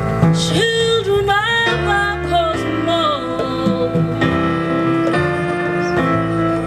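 Live jazz-inflected band playing: grand piano chords over a walking bass line, with a melody line sliding up and down in pitch during the first few seconds.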